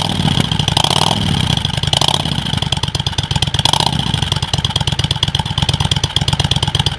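Honda Shadow VT 600's V-twin idling through an MCJ flap exhaust with the flap open and the dB killers still fitted, given three short throttle blips about a second apart early on. The engine is still cold, and the sound is quieter than its owner wants.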